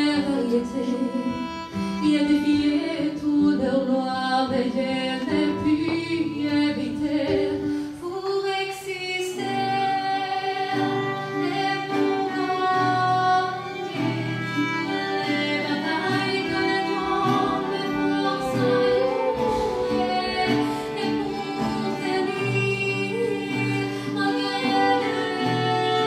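Violin playing a melody with guitar accompaniment; the music changes about eight seconds in.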